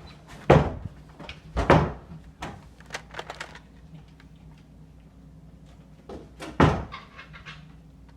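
Three loud, sharp knocks or thuds, about half a second in, just before two seconds and near seven seconds, with lighter clicks and taps between them.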